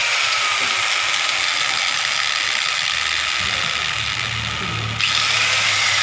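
Repaired angle grinder running, its motor and gearbox giving a steady high whine that drifts lower early on, with a sudden step up in level about five seconds in.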